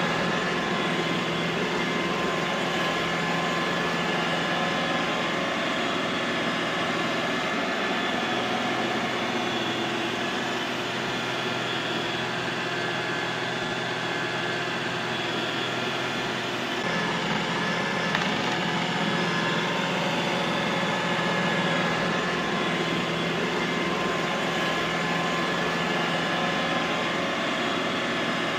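Robot vacuum cleaner running steadily: a whirring motor and brush noise with a steady high whine over a low hum. The hum shifts briefly about two-thirds of the way through, with a faint click soon after.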